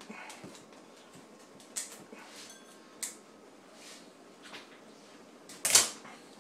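Light clicks and knocks about once a second, with one louder brief scrape near the end: handling noise from a live lobster being held over a metal stockpot.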